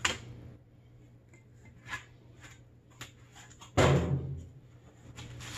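Metal clicks and taps of a hand grease gun being handled and reloaded, with a sharp click at the start and a heavy clunk about four seconds in.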